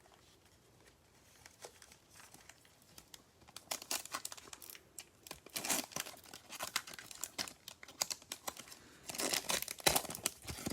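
Panini Prizm basketball card pack wrapper being torn open and crinkled, in several crackly bursts, loudest near the end.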